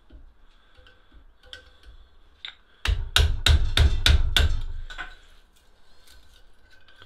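About seven quick, sharp knocks in a burst lasting about a second and a half, starting about three seconds in. They come from a screwdriver being worked hard against the wooden handle of a rusty machete clamped in a bench vise. A few lighter metal clicks come before and after.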